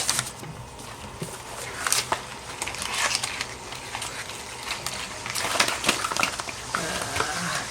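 Packaging being handled during an unboxing: irregular crinkling and crackling of plastic and paper wrapping.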